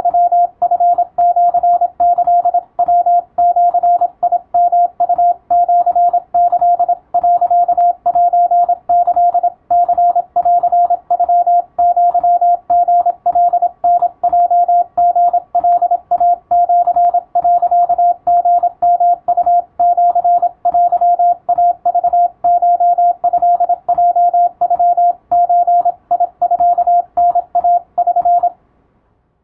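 Morse code (CW) practice: a single mid-pitched tone keyed on and off in a rapid, steady stream of dots and dashes. The keying stops abruptly about a second before the end.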